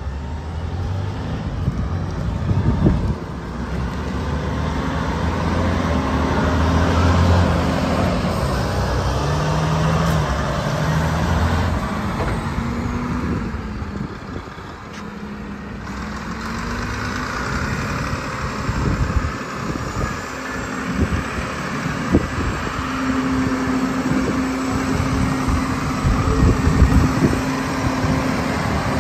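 Volvo A40F articulated dump truck's 16-litre six-cylinder diesel engine running as the truck drives, its note stepping up and down in the first half and holding steady near the end.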